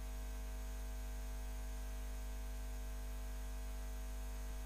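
Steady electrical mains hum with background hiss from the microphone and recording chain, unchanging throughout.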